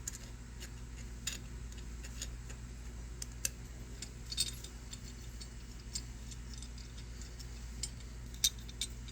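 Irregular small metallic clicks and taps as screws are tightened into the carriage adapter plate by hand, over a steady low hum.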